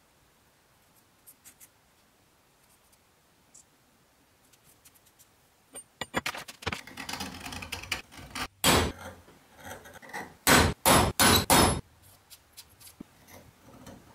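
Steel tools working a steel block: quiet with a few faint clicks at first, then about six seconds in a scribe scratching across the steel for a couple of seconds. Then a sharp metal knock, followed shortly by a quick run of four more.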